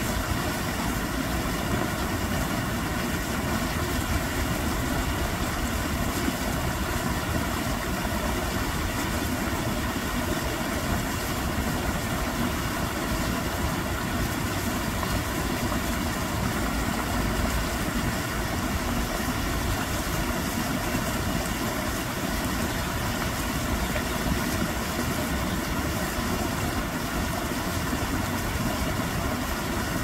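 Stream water rushing and churning over rocks in white-water rapids, a steady, unbroken rush of water.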